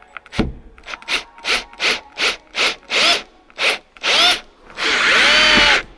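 Milwaukee cordless drill worked into a pleated vinyl cab wall panel in about ten short trigger pulses, its motor whine rising and falling with each one, then a longer run of about a second near the end.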